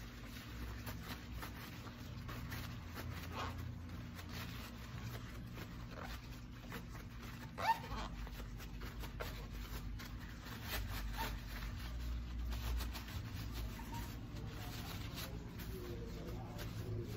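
Paper towels rustling and rubbing as metal hand-mixer beaters are wiped clean of lipgloss base, with one sharper click a little past the middle.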